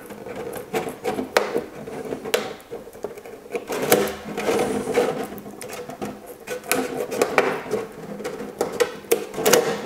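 Small curved scissors snipping into a clear polycarbonate RC car body shell: runs of short, crisp snips and crackles of the stiff plastic with brief pauses between them.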